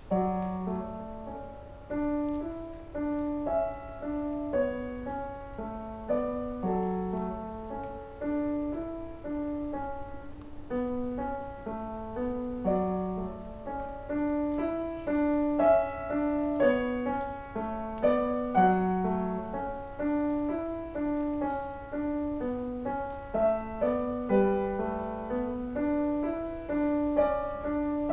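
Solo piano playing a flowing piece, with a low left-hand figure repeating about every two seconds under a higher melody. The playing begins suddenly with the first note.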